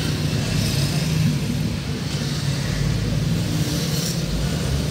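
Car engine and road noise heard from inside the cabin: a steady low hum.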